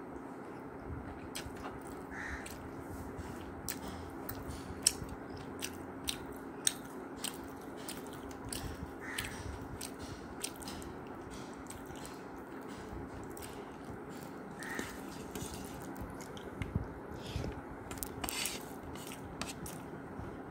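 Close-up eating sounds of rice and curry eaten by hand: chewing and wet mouth clicks, with fingers working the food on the plate. Many small sharp clicks throughout, a louder one about five seconds in, over a steady low hum.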